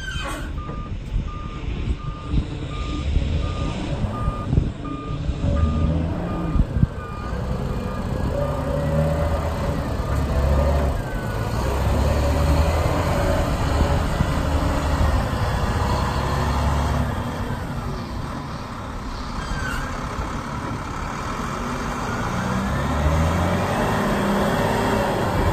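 Volvo A30E articulated dump truck's diesel engine running, with its reversing alarm beeping at an even pace for the first ten seconds or so. The engine then works harder and grows louder as the dump body is raised hydraulically to tip its load.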